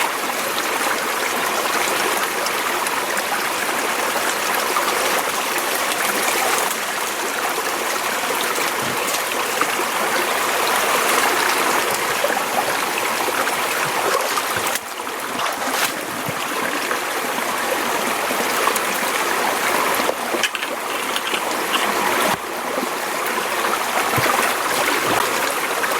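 A small mountain stream running at low flow, its water trickling and rushing steadily, with the level shifting abruptly a few times.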